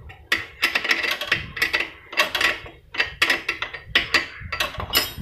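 Metal parts and tools clinking and knocking on a motorcycle's rear wheel and brake assembly: a quick, uneven series of sharp metallic clicks and taps, about four a second.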